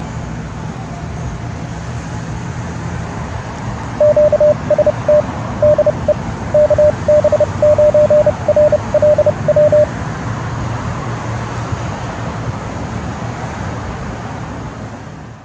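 Steady hiss of radio static with a single-pitch Morse code tone keyed in short and long beeps from about four seconds in to about ten seconds in, sending the ham call sign KB9RLW.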